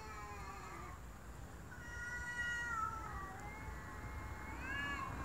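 Two cats in a standoff, yowling at each other in long, drawn-out calls: one call trails off about a second in, another starts shortly after and slides down in pitch, and a third rises near the end.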